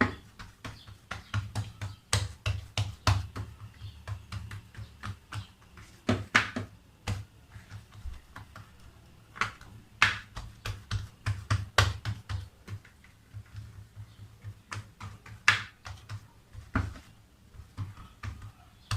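Irregular light taps, clicks and soft knocks of hands working pizza dough in a baking tray.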